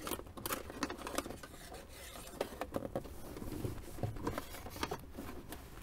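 Thin OBD2 cable being pushed through a channel behind a plastic dashboard: irregular scraping and rustling with many small clicks as the wire rubs and knocks against the plastic trim.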